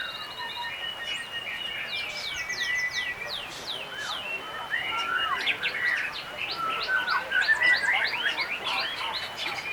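Several white-rumped shamas (murai batu) singing at once: long held whistles overlaid with rapid runs of sharp, sweeping notes, densest in the second half.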